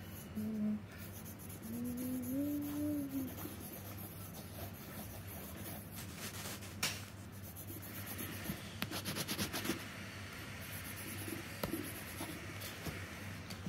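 Coloured pencil scribbling on sketchbook paper in quick back-and-forth strokes. A short hummed voice tone rises and falls in the first few seconds.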